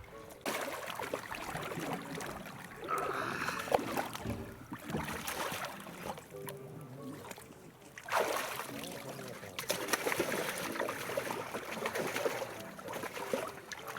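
Water splashing and sloshing in two long spells, with music playing faintly underneath.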